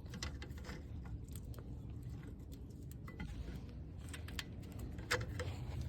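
Faint, scattered metallic clicks and light scrapes of hand tools and a brake pad being handled at a rear disc brake caliper, over a low steady rumble.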